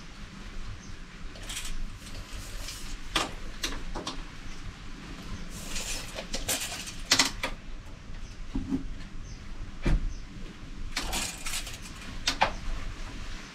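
Scattered clicks, taps and brief scrapes of hand work on a van's side-window trim, with a small hand tool, at irregular intervals.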